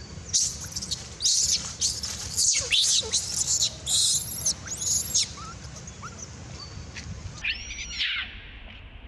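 Infant long-tailed macaque screaming: a run of high, shrill calls, many falling in pitch, for about five seconds, then one more call near the end.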